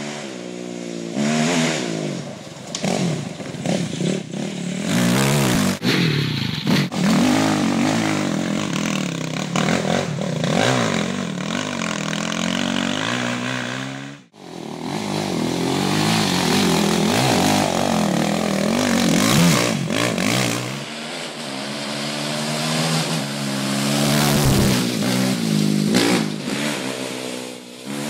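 Quad (ATV) engine revving hard, its pitch rising and falling again and again with the throttle as it rides a dirt trail. The sound drops out sharply for a moment about halfway through.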